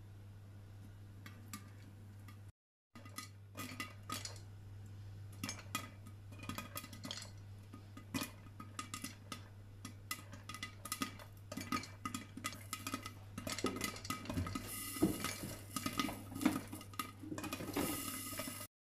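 Popcorn kernels popping in hot oil in a lidded pot: a few scattered pops at first, building to rapid popping, with sizzling near the end, over a steady low hum.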